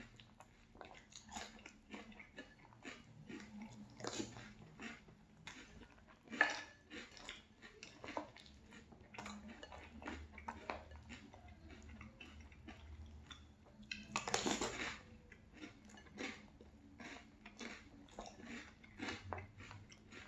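Close-miked crunchy chewing of marshmallow breakfast cereal, with a spoon clinking against the bowl between bites. There is a sharp clink about six seconds in and a louder, longer crunch or scrape about fourteen seconds in.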